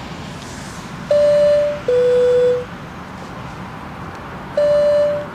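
Two-tone electronic alert chime, a higher beep followed by a lower one, sounding twice about three and a half seconds apart over a steady low background rumble: a live-stream notification sound.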